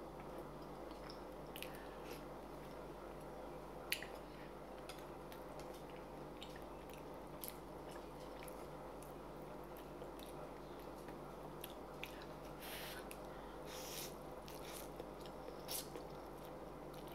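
Quiet eating of noodle soup: scattered small clicks of a ceramic spoon and chopsticks against the pan, with chewing, and a few short slurps of noodles near the end. A steady low hum runs underneath.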